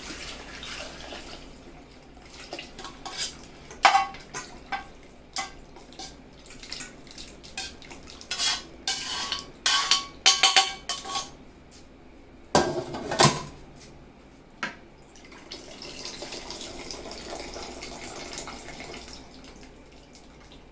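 Kitchen utensils, pots and bowls knocking and clinking as pressure-cooked beef is lifted out and strained, with a few brief metallic rings near the middle and a steadier run of pouring liquid in the last few seconds.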